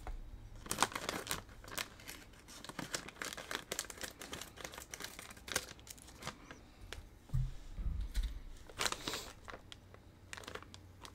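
Plastic snack bag crinkling and crackling as it is cut open with scissors and handled, in irregular bursts, with a dull low thump about seven seconds in.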